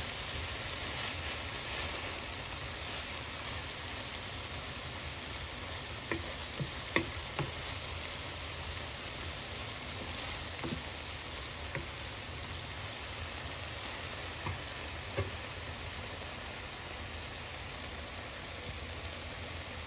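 A pan of sautéed bitter melon, tomatoes and fried milkfish sizzling in oil: a steady hiss with a few sharp pops or ticks, the loudest about seven seconds in.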